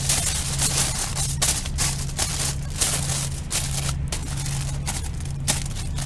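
Wood campfire crackling, with frequent sharp pops and snaps over a steady hiss, and a low hum underneath.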